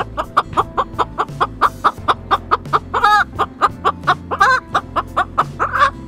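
Crow imitating a chicken: a fast run of clucks, about four a second, broken by a few longer drawn-out calls near the middle and just before the end. Background music plays underneath.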